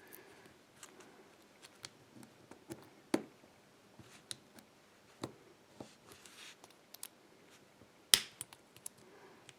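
Scattered small clicks and taps of a lock cylinder being handled in a vise, with a brief soft scrape a little past halfway and a sharper click about eight seconds in.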